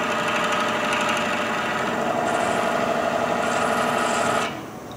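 Texturing tool pressed against wood spinning on a lathe, buzzing steadily as it indents a pattern into the surface rather than cutting. The buzz stops abruptly near the end.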